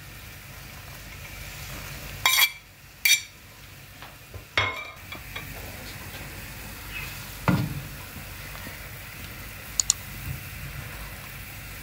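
Orange juice and water boiling in a pan, a steady bubbling hiss, with a few sharp clinks of a metal utensil against the plate and pan as orange-peel strips are scraped in, two to five seconds in, and a duller knock a little later.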